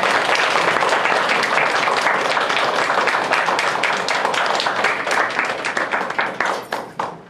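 A class of students applauding: dense, steady clapping that thins out and stops near the end.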